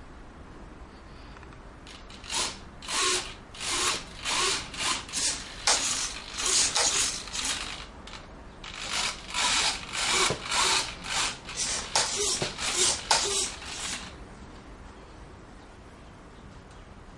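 Rhythmic rasping strokes, about two a second, in two runs with a brief pause between them. They start a couple of seconds in and stop a few seconds before the end, leaving a steady low background.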